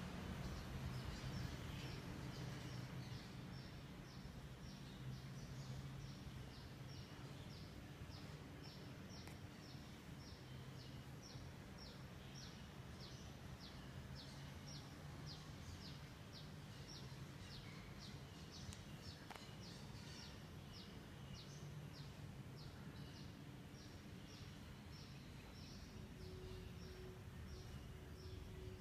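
Faint, rhythmic high chirping, about two chirps a second and very regular, over a steady low hum.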